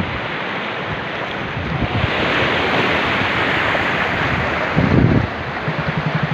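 Sea waves washing onto a sandy beach, the surf swelling about two seconds in, with wind buffeting the microphone in a loud low gust near the end. In the last second a low hum starts, pulsing about six times a second.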